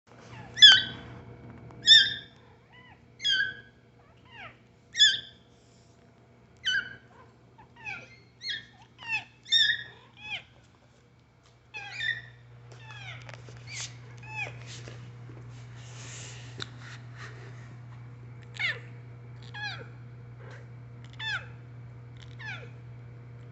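Young kittens mewing: short, high-pitched calls, each falling in pitch, roughly one a second. The calls are louder in the first ten seconds and fainter after a short pause, over a steady low hum.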